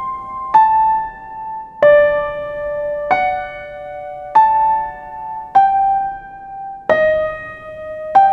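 Slow, gentle keyboard music in an electric-piano or piano sound: a soft two-note chord struck about every 1.3 seconds and left to ring and fade, in a lullaby-like sleep tune.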